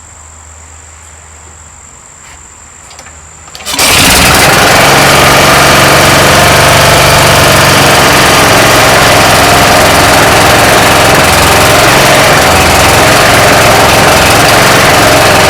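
Troy-Bilt rototiller's 5-horse Tecumseh single-cylinder engine starting about four seconds in and then running steadily. This is its first run after a no-start, with the carburetor just cleaned and rebuilt.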